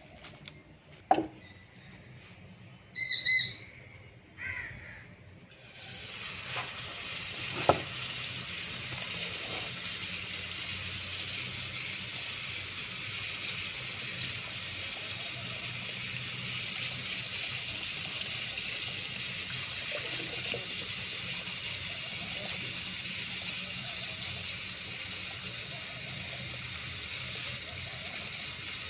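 Tap water running steadily into a clay bowl as rice is rinsed by hand, starting about six seconds in. Before it, a short, loud call of a few quick high notes about three seconds in, and a couple of sharp knocks.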